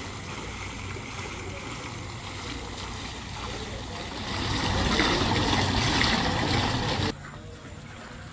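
Water from a small fountain's jets splashing and spilling into its tiled basin: a steady rush that swells about four seconds in, then drops abruptly near the end.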